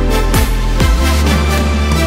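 Electronic background music with a heavy bass line and repeated quick falling pitch sweeps.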